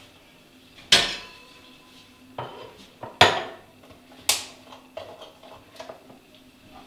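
Kitchen dishes clattering: a glass, plate and carton knocked and set down on a counter. Four sharp clinks about a second apart, the loudest just past the middle, then lighter clicks and taps.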